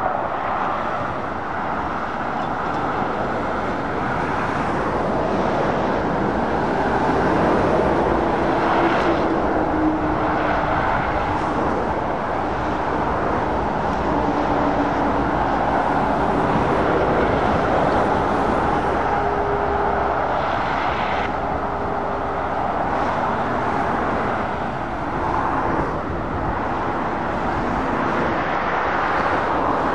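Motorway traffic passing: lorries and cars with tyre roar and diesel engine noise, swelling and easing as vehicles go by, with a few brief humming tones in the middle stretch.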